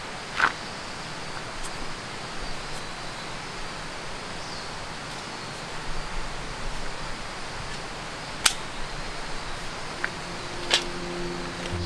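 Sharp metallic clicks and clacks from a folding steel-mesh camp table as its legs and frame are unfolded and set, three loud clicks standing out (about half a second in, past the middle, and near the end) over a steady background hiss.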